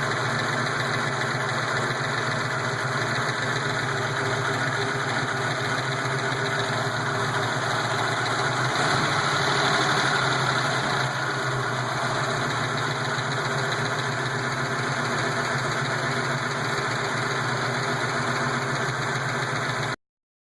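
A 331 cubic-inch V8 idling steadily, warmed up towards operating temperature, with the valve lifter noise it is being checked for. The sound swells slightly about halfway through and stops abruptly near the end.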